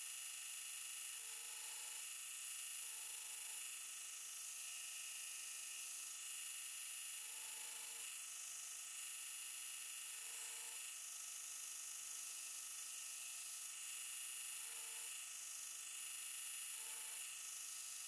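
Belt grinder running steadily while a 1095 steel knife blade is held against the belt on a 45-degree jig to grind a straight false edge. The sound is an even, mostly high hiss, and its tone shifts slightly every few seconds.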